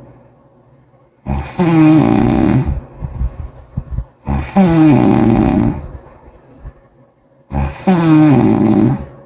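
A person snoring loudly with a wet, bubbling sound: three long snores about three seconds apart, each falling in pitch, with softer crackling breaths between them.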